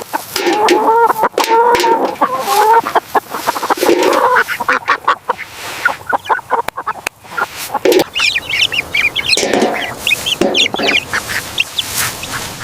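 Farmyard poultry calling: a flock of fowl giving repeated honking calls in the first few seconds, then rapid high-pitched chirps from about eight seconds in, among many short clicks.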